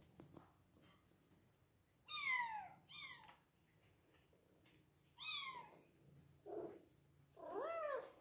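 Hungry Bengal kittens meowing. There are three high calls that fall in pitch, then two lower calls that rise and fall near the end.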